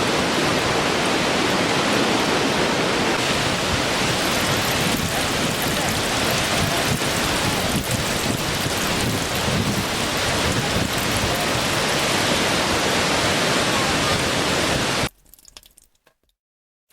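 Waterfall: a steady noise of falling water that cuts off suddenly about fifteen seconds in, leaving near silence.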